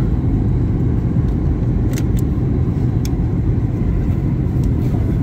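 Steady low rumble inside the cabin of a Ryanair Boeing 737 on approach: engine and airflow noise, with a few faint ticks around two to three seconds in.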